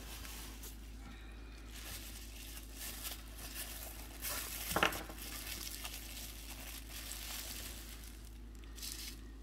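Plastic bubble wrap crinkling and rustling as hands unwrap a small miniature from it, with one sharper crackle about halfway through.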